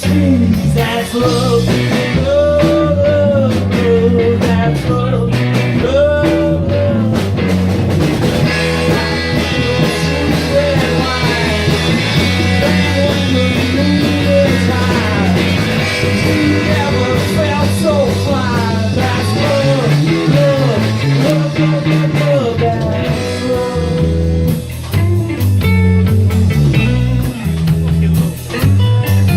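Live rock band playing with electric guitar, bass and drums; the guitar bends notes up and down over a steady bass line.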